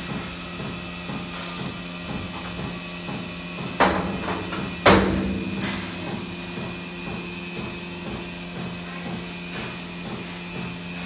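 Milking machine running: a steady hum from the vacuum system with a regular pulsing underneath, and two loud metallic clanks about four and five seconds in.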